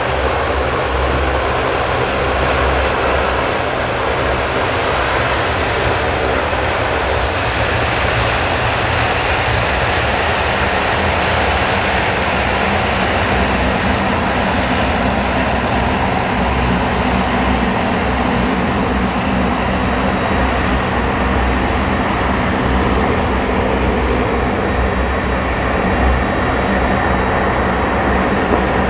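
Jet engines of a Boeing 767-300 airliner running steadily while the aircraft stands still on the ground: a loud, even rushing noise with a steady low drone underneath.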